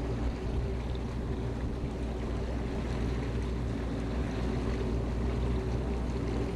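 A boat's motor running steadily at low speed with a constant low hum, mixed with wind and water noise.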